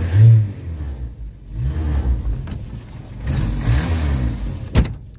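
1985 Renault 5 GTL's four-cylinder petrol engine revved up and down three times, heard from inside the cabin and sounding really rough: the engine is worn out, with piston slap. A single sharp knock near the end.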